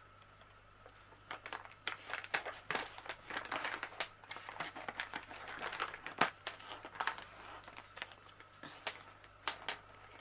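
A parcel mailing bag being pulled and torn open by hand: a long run of irregular crinkling and crackling, starting about a second in.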